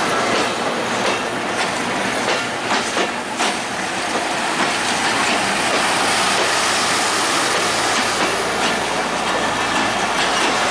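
Passenger train rolling past at close range: a steady rush of wheels on rail, with wheels clattering over rail joints, most sharply in the first few seconds.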